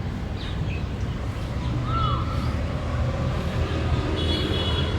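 A few faint, short calls of a large grey babbler: a falling note near the start, a short arched note about two seconds in, and a held call near the end. Under them runs a louder steady low rumble.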